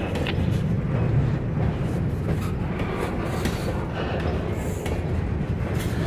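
Loaded-or-empty covered hopper freight cars rolling slowly past on steel wheels: a steady rumble of wheels on rail, with a few light clicks over the joints.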